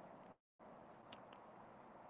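Near silence: faint background hiss that cuts out completely for a moment less than a second in, with two faint ticks about a second in.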